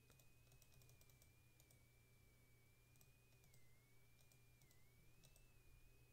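Near silence, with many faint, short computer-input clicks as a number is entered into a calculator, over a low steady hum and a thin, slightly wavering high whine.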